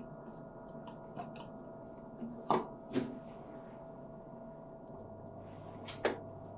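Basket holder being clicked onto the spindle of an Elma Elmasolvex RM watch cleaning machine: a few sharp clicks and knocks, the loudest about two and a half and three seconds in and again near the end, over a faint steady hum. A low hum sets in about five seconds in.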